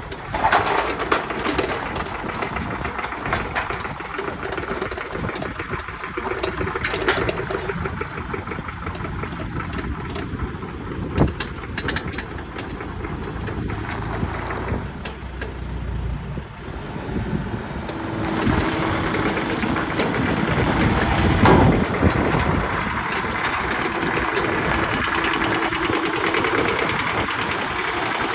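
Diesel engine of heavy machinery running steadily. It gets louder about two-thirds of the way in, when a steady hum comes in.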